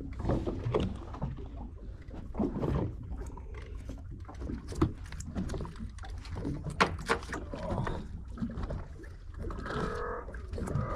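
Steady low rumble with water noise and scattered knocks and clicks aboard a drifting fishing boat. A short pitched sound comes near the end.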